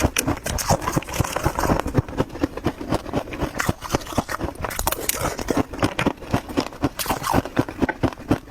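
Freezer frost being chewed, a fast, irregular run of crisp crunches several times a second.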